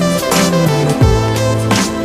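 Background music with a moving bass line over held notes and a steady beat.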